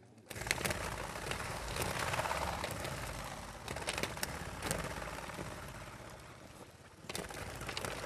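Chukar partridges flushing out of a plastic crate: a sudden loud whirr of many wings flapping, with sharp clicks and rattles, starting just after the start and surging again about seven seconds in as more birds burst out.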